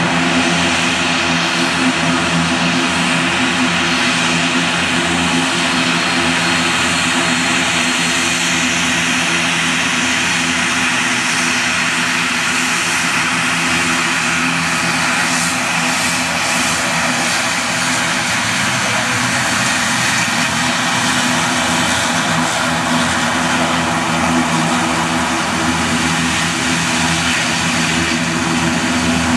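The two turboprop engines and propellers of an ATR 42 running steadily while the aircraft taxis close by: a steady propeller drone with several held low tones under a hiss of engine noise.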